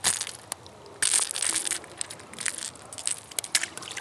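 Crackly scraping and sharp clicks of hands and pliers working a hook out of a largemouth bass's mouth, with the longest scratchy stretch about a second in.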